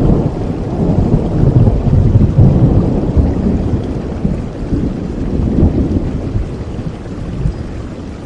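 Thunderstorm: a long, deep rolling rumble of thunder that swells twice and fades away near the end, over steady rain.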